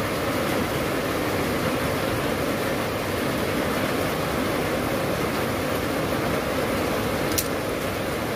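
Heavy rain falling steadily, a dense even hiss. A single sharp click comes near the end as a metal screwdriver is set down on the concrete floor.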